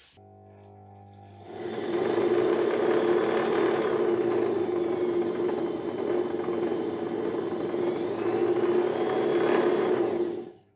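Homemade belt-driven drum sander running, its washing-machine motor turning the plywood sanding drum through a V-belt and pulleys with a steady whir. It is faint for the first second and a half, then loud and even, and cuts off abruptly near the end.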